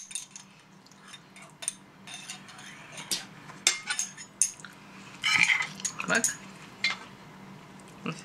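Forks and a serving spoon clinking and scraping against ceramic plates and a pasta bowl during a meal, in irregular sharp clicks with a denser clatter about five seconds in.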